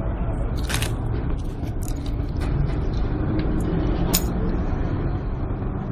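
A steady low rumble of background noise, with two brief sharp clicks, one about a second in and one about four seconds in.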